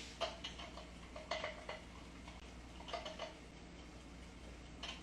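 Faint clinks and scrapes of a kitchen utensil against a pan, in three short clusters about a second and a half apart, with a single click near the end.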